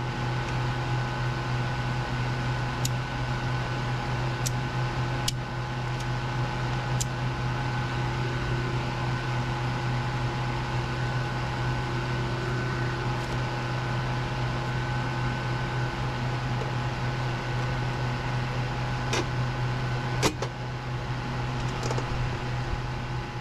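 Steady hum of a running motor, with a few separate small clicks and taps from hands and a screwdriver working at a breaker panel; the sharpest click comes about twenty seconds in.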